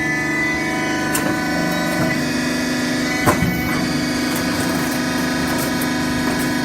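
Hydraulic baling press running: the steady whine of its hydraulic pump and motor, with a few short knocks, the loudest about three seconds in.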